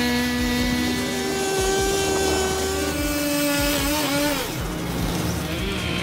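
Stihl chainsaw running at high revs as it cuts through a thick tree trunk. Its pitch shifts a few times as the load changes, dipping and recovering about four seconds in.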